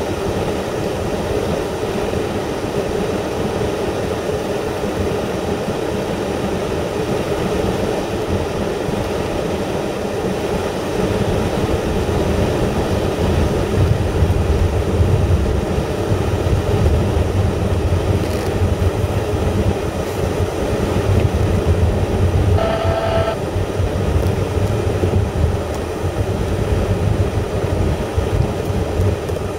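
Car driving along, with steady tyre and road noise and a low rumble that swells a little about halfway through. A short beep sounds once, about two-thirds of the way in.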